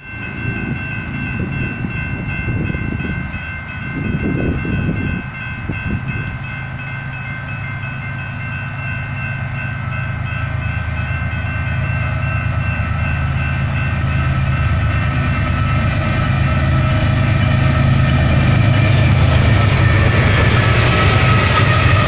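Grade-crossing warning bells ringing steadily while a BNSF freight train approaches, the low rumble of its diesel locomotives growing louder until the lead units pass the crossing near the end.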